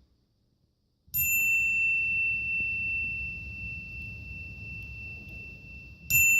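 A high, clear bell ding played as a sound effect, struck twice about five seconds apart, each stroke ringing on and fading slowly. The first ding follows about a second of silence.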